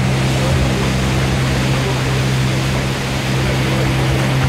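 Motorboat engine running at a steady pitch, with rushing river water all around.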